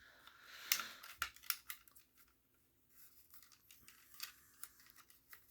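Packaging being handled as a smoke alarm is worked out of its box: a scatter of sharp clicks and snaps with a brief rustle at the start. The loudest click comes about three quarters of a second in.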